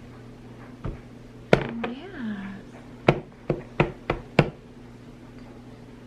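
A string of sharp knocks and taps, about eight over three and a half seconds, with a short pitch that rises and falls about two seconds in, over a steady low electrical hum.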